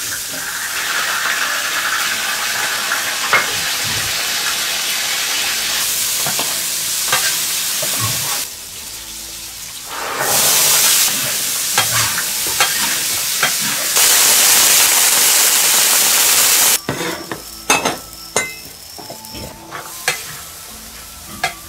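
Frying sizzle and spatula stirring in a large iron wok as chili bean paste fries with meat. About ten seconds in a basketful of chopped Chinese onion bulbs goes into the hot oil and the sizzle grows louder, then it cuts off sharply near the end, leaving scattered clicks and knocks.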